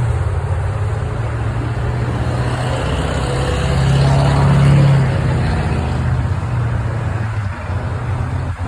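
Car driving: a steady engine and road drone that swells louder for a couple of seconds around the middle.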